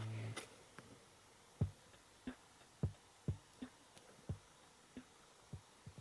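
Radio music cuts off just after the start. Then about ten soft, irregularly spaced clicks follow while the touchscreen car radio head unit is operated to change station.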